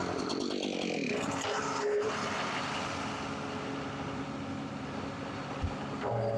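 Forestry log forwarder's engine running steadily.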